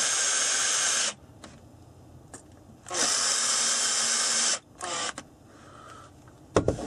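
Cordless Makita drill-driver driving screws through an aluminium butt plate into a rifle stock: the motor runs steadily for about a second, stops, runs again for about a second and a half, then gives a short burst. A sharp knock near the end.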